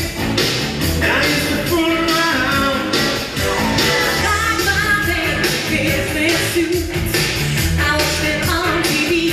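A singer performing an upbeat rock-and-roll song with a band, over a steady drum beat.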